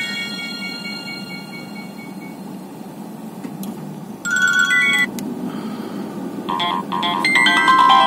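Nokia 1110 ringtones played from the phone's small speaker. One melody dies away, a short snatch of another plays for about a second and stops, and a new ringtone melody starts about six and a half seconds in. A steady low hum runs underneath.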